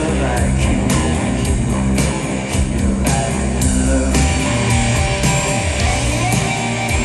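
Live rock band playing: electric guitars and bass over drums, with a steady beat of drum and cymbal hits about twice a second.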